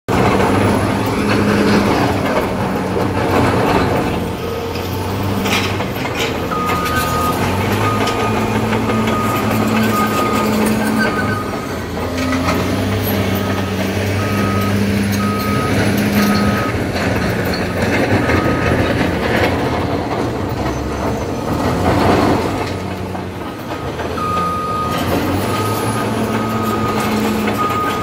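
Diesel engines of heavy road-building machines, a Caterpillar D7R crawler bulldozer among them, running steadily, with a machine's reversing alarm beeping in an even series of short tones that stops for a while past halfway and resumes near the end.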